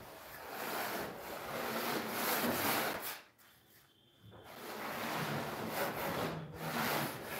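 Hand float being rubbed back and forth over a semi-dry sand-and-cement floor bed, a gritty scraping that stops for about a second midway and then resumes.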